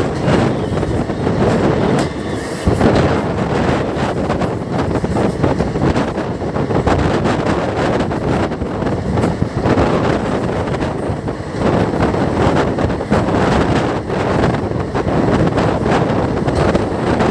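Passenger train coach running along the track, heard from an open door: a steady rumble and rattle of wheels on rail, with wind buffeting the microphone.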